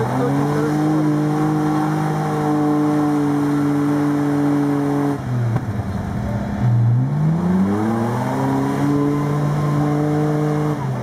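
Off-road 4x4 competition vehicle's engine revving hard and held at high revs while its wheels spin in deep mud, trying to climb out of a trench. The revs drop off about five seconds in, then climb and hold high again before dropping near the end.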